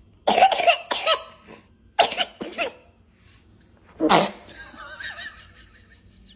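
A baby sneezing and coughing: three short bursts, near the start, about two seconds in and about four seconds in.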